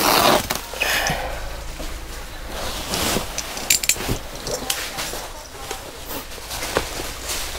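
Rustling and crinkling of a woven plastic sack wrapping being handled and pulled back off a bale, with scattered short clicks and scrapes.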